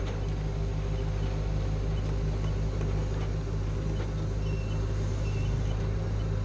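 Doosan 4.5-ton forklift's diesel engine idling steadily, heard from inside its cab.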